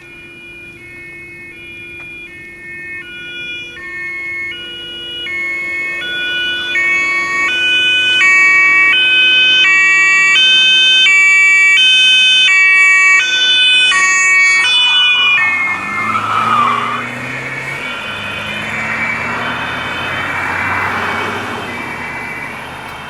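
German police patrol car's two-tone siren (Martinshorn) approaching, growing louder over the first half. About 15 s in, the car swings through a turn with its tyres squealing and the engine revving as it pulls away, the siren still sounding.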